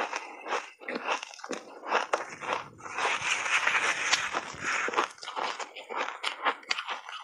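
Close-miked crunching of a refrozen ice block being bitten and chewed: sharp separate cracks at first, a dense run of grinding crunches from about three to five seconds in, then single crunches again.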